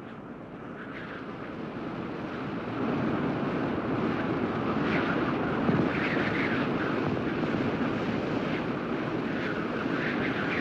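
A steady rushing noise that fades in over the first three seconds and then holds level, with faint higher streaks here and there.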